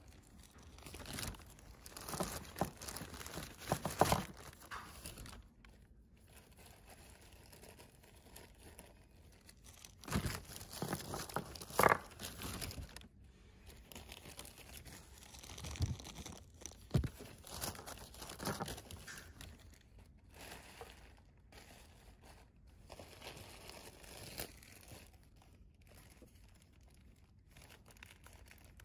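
Plastic bag crinkling and rustling in irregular spells of crackles, with quieter gaps between.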